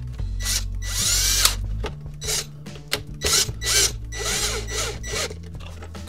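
Ridgid cordless drill driving screws into a plastic heater housing, run in a series of short trigger bursts, its motor pitch rising and falling with each.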